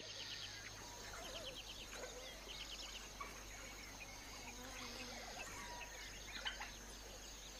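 Dawn bush ambience: several birds chirping and trilling in a chorus, over a steady high-pitched insect drone.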